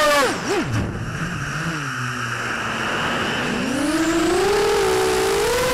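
Shen Drones Krieger FPV quadcopter's motors and propellers, heard from the onboard camera. The high whine drops sharply at the start as the throttle is cut, stays low and wavering for about three seconds, then rises again as the throttle comes back up, over a hiss of wind.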